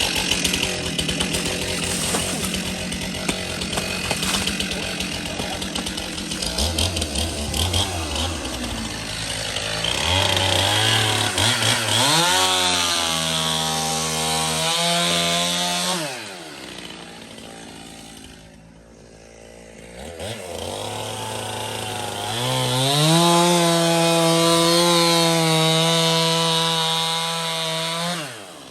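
Gas-powered ice auger's small engine revving up and running at high speed for a few seconds, dropping back, then revving up again and holding before it falls off near the end.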